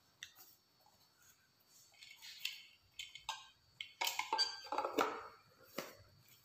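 Clear plastic packaging being handled: light rustles and small clicks, with a cluster of sharper clicks and crinkles about four to five seconds in.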